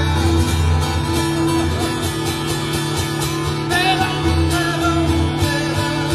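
A man singing to his own strummed acoustic guitar in a live performance.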